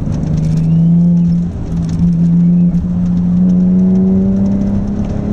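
Audi S4 engine under hard acceleration, heard from inside the cabin. The engine note climbs, breaks briefly about a second and a half in, then climbs steadily again.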